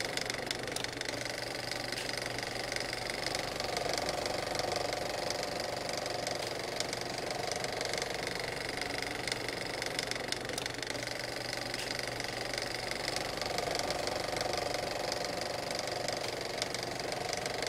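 Antique Ford flathead V8 engine idling steadily.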